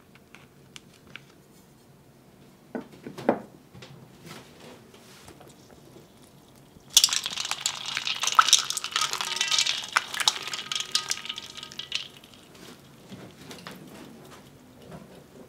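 Plastic zip-top freezer bag crinkling as it is handled, with a sharper rustle about three seconds in. From about seven seconds in, for some five seconds, ice cubes clink and ice water splashes in a stainless steel bowl as the bag is pushed down into it to chill.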